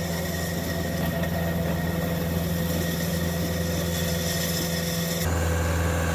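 CAT 259D3 compact track loader's diesel engine running steadily while it drives a hydraulic power rake over gravel: a steady low hum with a few held tones. It gets louder about five seconds in.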